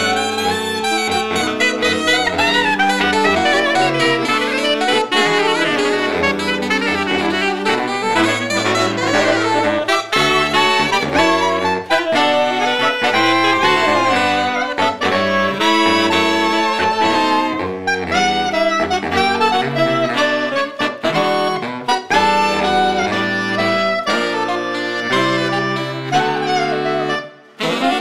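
Saxophone quintet of soprano, alto, two tenor and baritone saxophones playing a jazz-fusion arrangement in close harmony. Near the end the group breaks off together for a moment, then comes straight back in.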